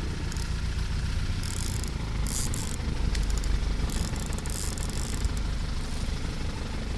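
A fishing boat's engine running steadily with a low hum, with several short bursts of hiss over it.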